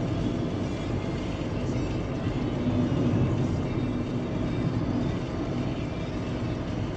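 A car driving, with steady engine and road noise, mostly low rumble.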